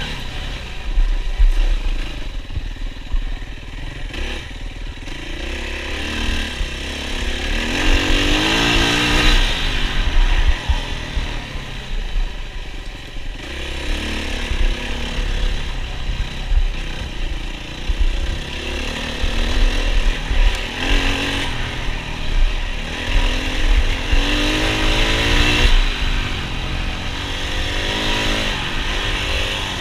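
Yamaha WR450F's 450 cc single-cylinder four-stroke engine revving hard under race load, its pitch rising and falling over and over as the throttle is worked.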